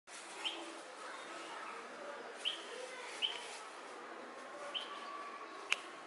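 Red-vented bulbuls calling: four short, sharp chirps a second or two apart over steady background noise, with a sharp click near the end.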